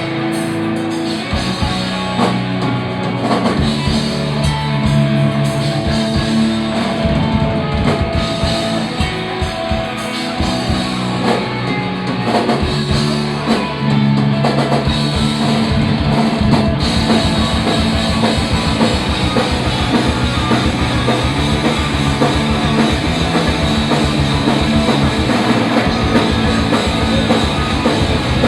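Live punk rock band playing an instrumental passage: a drum kit pounds under distorted guitar and bass. About halfway through the drumming gets busier and the whole band louder.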